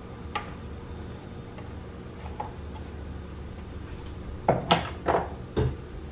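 Light clinks and knocks of a plastic serving spoon against a glass mixing bowl while stirring macaroni: one soft tick near the start, then a quick cluster of four sharp taps about four and a half to five and a half seconds in.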